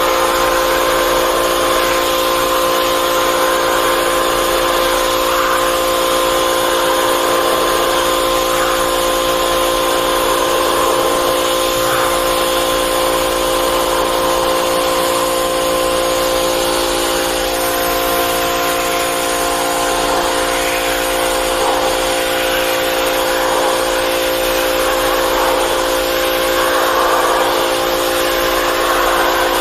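Pressure washer running and blasting a high-pressure water jet onto a rusty metal plate. The spray makes a steady hiss over a constant whine from the machine.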